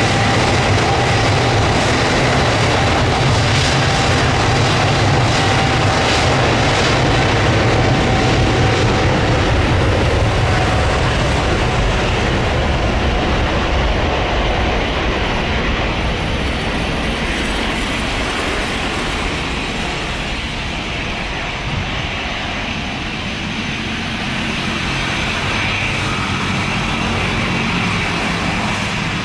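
Jet airliner engines running as a loud, steady noise, with a thin steady tone in the first half. The noise eases off slowly through the second half.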